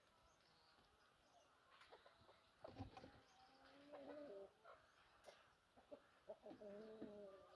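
Faint animal calls: two spells of drawn-out, slightly wavering pitched calls, the first about three seconds in and the second near the end, with a dull thump just before the first.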